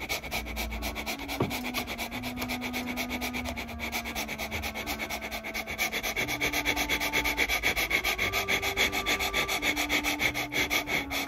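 Cat licking with quick, regular rasping strokes of its tongue, about five a second, growing louder in the second half.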